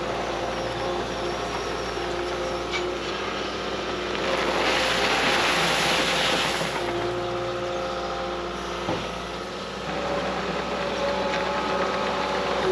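Diesel engine of a piece of heavy equipment running under work, its pitch stepping up and down with the throttle. About four and a half seconds in, a loud rushing noise rises over it for a couple of seconds.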